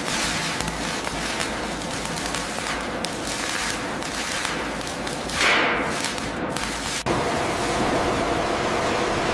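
Electric arc welding crackling and hissing with spatter, with a louder flare about five and a half seconds in. About seven seconds in it cuts sharply to a steadier machine noise.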